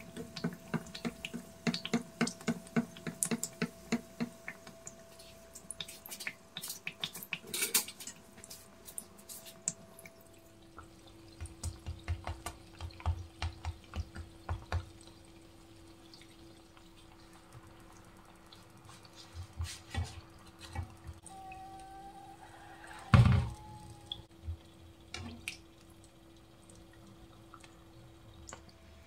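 Oil sizzling and crackling around a flatbread shallow-frying in a pan. The pops are dense for the first ten seconds or so, then sparser. A single sharp knock, the loudest sound, comes a little after twenty seconds.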